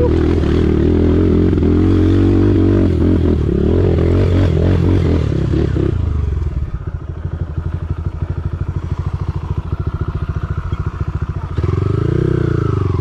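Kawasaki KLX140G dirt bike's small single-cylinder four-stroke engine revving under load for about six seconds, pitch rising and falling with the throttle. It then settles to an even, pulsing idle, with one short blip of the throttle near the end.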